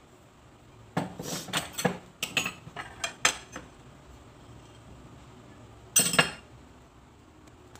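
Plates and kitchen utensils clinking and scraping as ingredients are moved into a glass bowl: a run of sharp clinks and scrapes for about two and a half seconds, then one more brief clatter about six seconds in.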